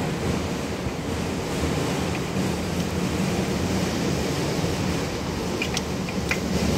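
A steady low rumble of background noise, with a few light clicks near the end.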